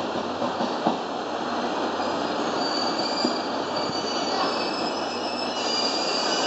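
Locomotive-hauled train of 12-series passenger coaches pulling away over the curving track and points, with a steady rolling noise. Its wheels begin squealing, high and thin, about two and a half seconds in, and the squeal is louder near the end.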